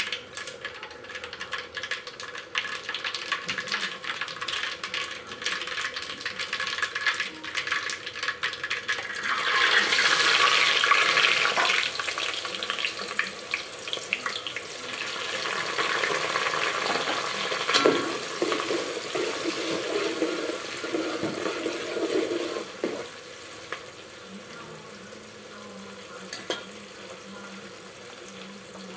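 Whole spices crackling and sizzling in hot oil in an aluminium pot, then a loud burst of sizzling about ten seconds in as sliced onions go into the oil. The onions fry with a steady sizzle and the scrape of a spoon stirring them, with a sharp knock about halfway through, and the sizzle grows quieter near the end.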